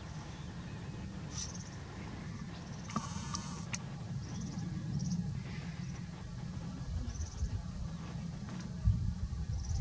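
Short high chirps of small birds, repeated several times, over a steady low rumble of wind on the microphone. A louder, harsher call comes about three seconds in, and the rumble swells near the end.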